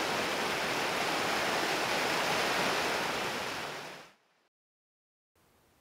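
Steady rushing hiss of a spouting spring's tall water jet, fading out about four seconds in.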